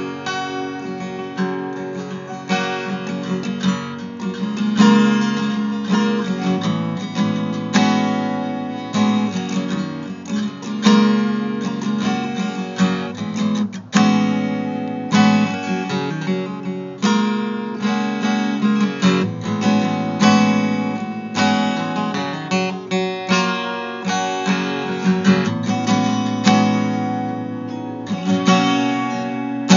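Acoustic guitar music: chords strummed and left to ring, about one stroke every second or so, with no singing.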